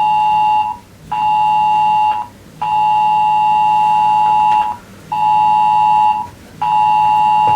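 Mobile phone emergency alert attention tone, sounding for a test cell-broadcast alert: two close high pitches sounded together, pulsing on and off in loud blasts of about a second, with one longer blast of about two seconds in the middle.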